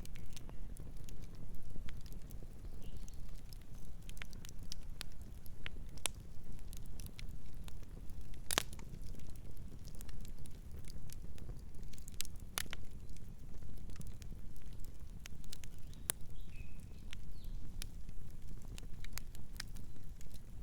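Campfire burning: a steady low rumble of flames with scattered sharp crackles and pops of burning wood, the loudest pops about eight and a half and twelve and a half seconds in.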